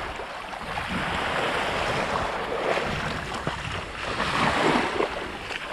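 Small waves washing onto a sandy beach, the wash swelling about four seconds in, with wind rumbling on the microphone.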